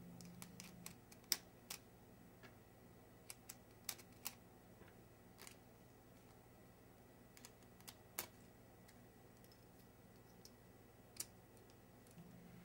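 Small, irregular clicks and taps of metal screwdriver bits being picked out of a bit case and handled, over a faint steady low hum.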